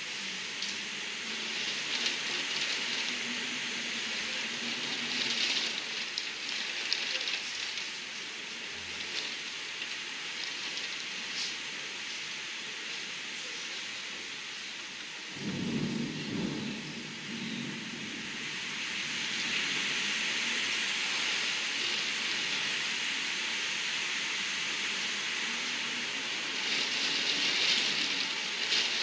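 Storm of downburst strength: a steady hiss of heavy, wind-driven rain and gusting wind, heard from behind window glass with rain striking it. About halfway through, a short low rumble of thunder; the hiss swells again near the end.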